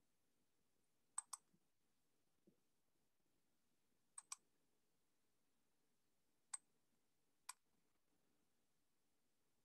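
Computer mouse clicking over near silence: two quick double clicks, then two single clicks.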